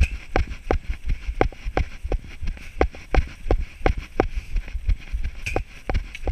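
A runner's footfalls on a grass trail at running pace, a steady thud about three times a second.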